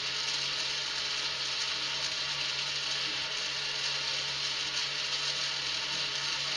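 K'nex toy motor running, its small gear driving the plastic gear chain around the rim of a K'nex Ferris wheel: a steady whir with a low hum underneath.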